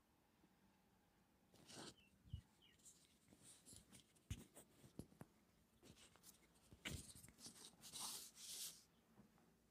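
Faint rustling of paper and soft knocks and taps as papers and small objects are handled on a table, in short irregular bursts, the longest rustle near the end.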